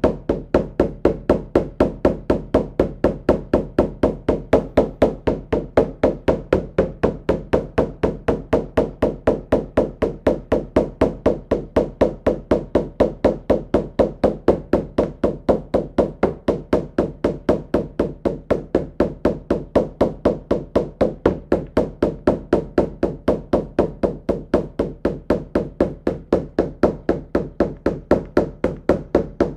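Shamanic frame drum beaten in a steady, unbroken rhythm of about four beats a second. This is the monotone drumbeat of a drum journey, meant to carry listeners into a trance state.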